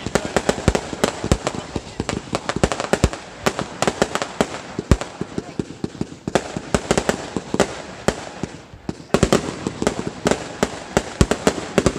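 Fireworks going off in rapid, irregular bangs and crackles, several a second, easing briefly about eight seconds in before another dense burst.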